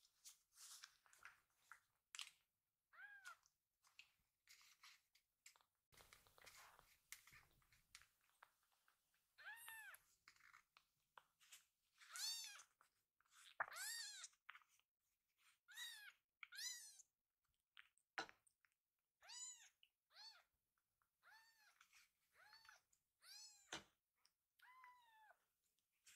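Very young tabby kitten mewing over and over: faint, thin, high mews that rise and fall in pitch, about one a second from roughly ten seconds in, with soft scuffling before that.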